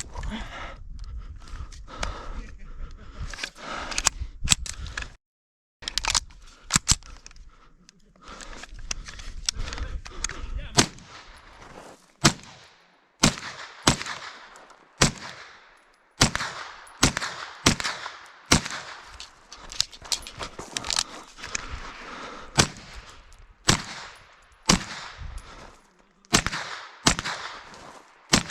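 A string of semi-automatic gunshots from a competition rifle or carbine, fired singly and in quick pairs at uneven intervals, each crack followed by a short echo.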